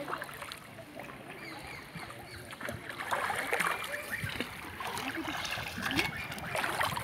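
A coracle being paddled along a river: the paddle blade splashes and pulls through the water while water rushes and sloshes along the hull. The splashing comes strongest about three seconds in and again near the end.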